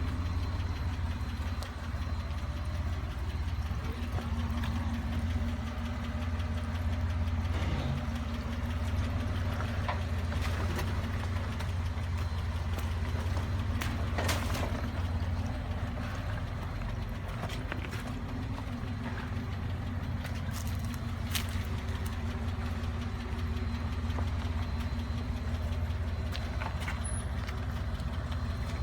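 Off-road 4x4's engine running steadily at low speed on a trail, a constant low drone, with a few short sharp knocks and clicks now and then.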